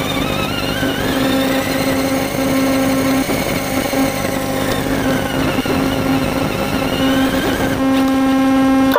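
Motor and drivetrain of the Tonka Summit RC buggy, heard from onboard while it drives: a whine that rises and falls in pitch with speed over a steady hum.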